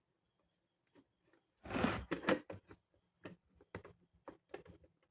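Handling noises from a phone mount being fixed onto a helmet: a short scrape about two seconds in, then a string of light knocks and clicks.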